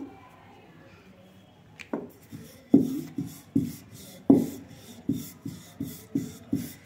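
Wooden rolling pin rolling out a thin disc of dough on a granite countertop. A knock at the start and a short pause, then quick back-and-forth strokes, about two or three a second, each a light knock followed by a rub.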